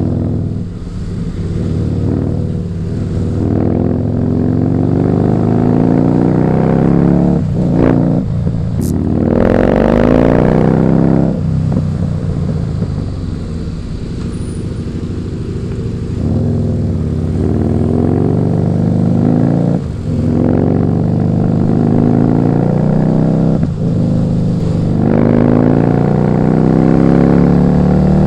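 Husqvarna Nuda 900R's parallel-twin engine pulling hard under acceleration. The revs climb and drop back at each gear change, several times over.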